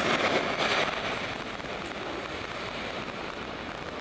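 Boeing 737 jet engines at takeoff thrust: a broad roar that is loudest at first and fades steadily as the airliner rolls away down the runway.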